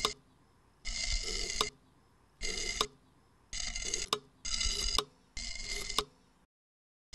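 Repeated tool sound effect for a masonry repair: five short mechanical bursts, each ending in a sharp click, with brief pauses between them.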